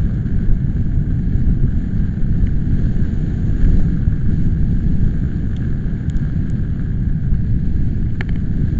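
Storm wind buffeting the microphone: a loud, steady, gusting low rumble, with a few faint ticks near the end.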